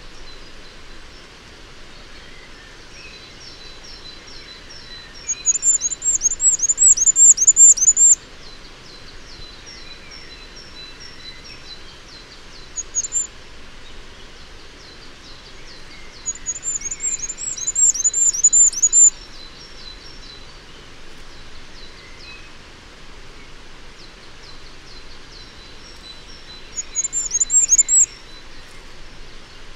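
Male firecrest singing: three bursts of very high, thin repeated notes, each two to three seconds long and roughly ten seconds apart, with a short phrase between the first two. Fainter high bird notes and a light hiss run underneath.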